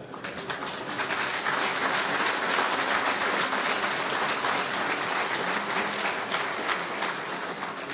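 A large audience applauding: dense clapping that swells during the first second and eases off slightly near the end.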